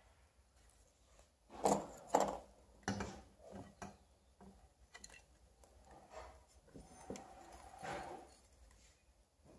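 Handling noise of metal lantern parts: a rusted tin cap, a round LED board and wires knocked and rubbed together in the hands. It is a string of irregular light knocks and scrapes, the loudest two close together about two seconds in.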